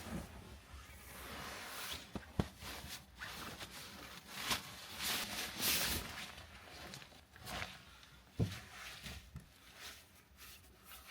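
Rustling and handling noises in a small enclosed space, with several sharp clicks and knocks. A louder knock comes about eight seconds in.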